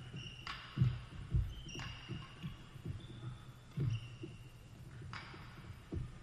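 Doubles badminton rally: court shoes squeaking briefly on the court floor again and again, low thuds of footfalls and lunges, and a few sharp racket strikes on the shuttlecock.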